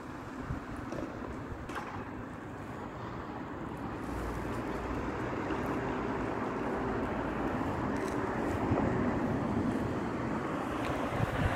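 Street traffic: a car running along the road nearby, its engine and tyre noise growing steadily louder over the second half as it approaches.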